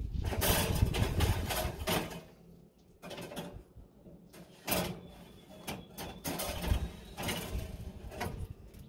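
Metal wire racks of a vertical smoker rattling and scraping on their rails as they are slid out and pushed back in, with several sharp metallic clanks in the second half.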